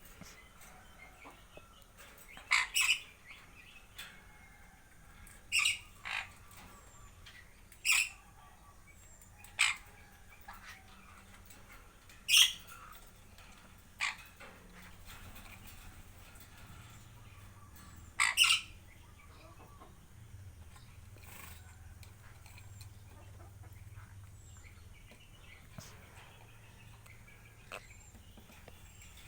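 Parrots giving short, loud squawks every few seconds, some in quick pairs, with fainter chirps between.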